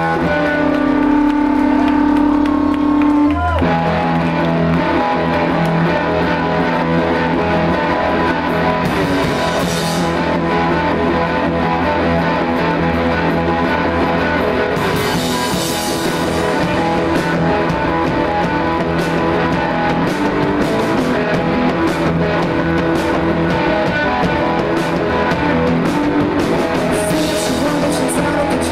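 Live rock band of electric guitar and drum kit playing loud. It opens on held guitar notes, and the drums and full band come in about three and a half seconds in.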